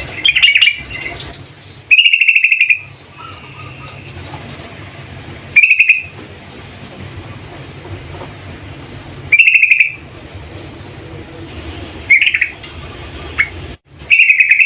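Yellow-vented bulbul (trucuk), a female, giving short loud bubbly calls, six of them in a row, each under a second long and spaced a few seconds apart, over a steady low hum.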